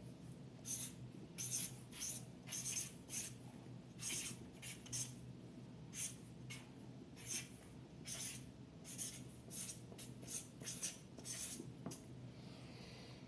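Handwriting: a fast, irregular run of short scratchy strokes, faint, over a low steady room hum.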